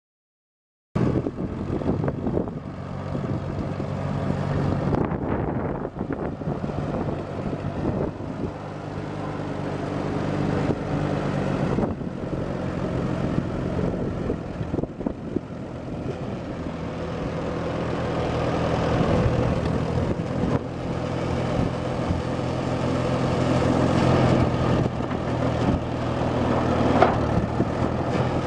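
Allis-Chalmers WD tractor's four-cylinder gasoline engine running steadily as the tractor is driven slowly, starting about a second in.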